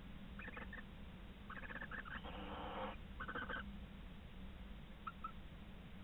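Barn owls calling: a few short bursts of rapid rattling calls, with a longer harsh hissing screech about two seconds in and a faint short call near the end.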